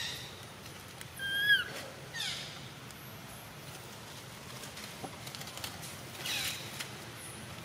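A few short, high-pitched animal calls: a clear, bending squeak about one and a half seconds in, the loudest sound, and raspier falling calls around two and six seconds in, over a faint steady background.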